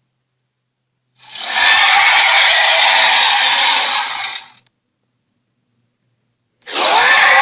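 Transformersaurus creature sound effect: a harsh, rasping, noisy burst about three seconds long, starting about a second in, with dead silence on either side. A second similar burst begins near the end.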